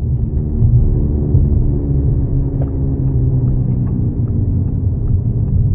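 Audi A6 (4G) TDI quattro on the move with a loud, steady low rumble and a droning hum whose pitch sinks slightly midway. The noise is the sign of a defective wheel bearing.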